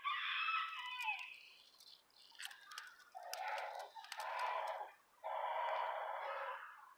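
Black Australorp × Silver Laced Wyandotte cross rooster crowing. After a short raspy call at the start, a harsh crow comes in the second half: two short notes and then one long drawn-out note.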